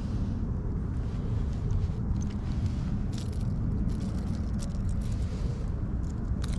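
Steady low wind rumble on the microphone, with scattered small clicks and rustles as a caught fish is handled and unhooked.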